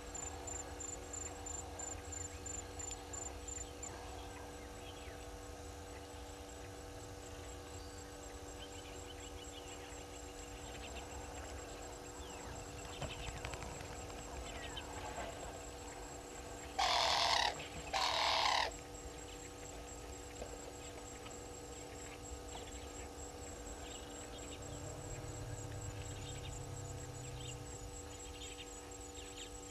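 Bush ambience: a continuous high, pulsing insect trill over a steady low hum, broken about halfway by two short, loud calls a little over a second apart.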